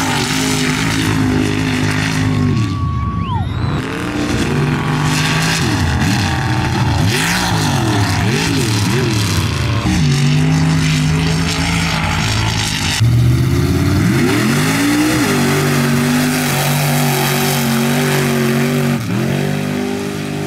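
Big block Ford V8 of a one-ton mud bog truck running at high revs under full throttle, the revs swinging quickly up and down several times midway and climbing again later.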